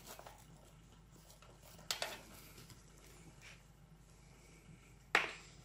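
Quiet room tone broken by two short knocks: a faint one about two seconds in and a sharper, louder one near the end.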